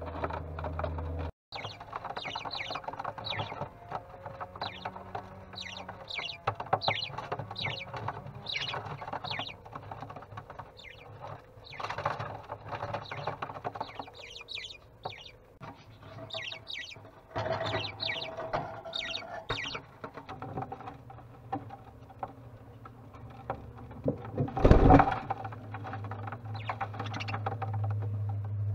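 Budgies chirping in many short, quick calls, over a steady low hum, with one loud knock about 25 seconds in.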